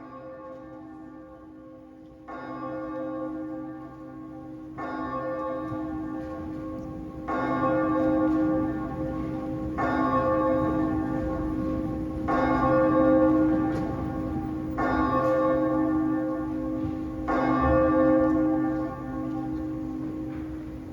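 Church bell tolling slowly, eight strokes about two and a half seconds apart, each ringing on over a steady sustained drone.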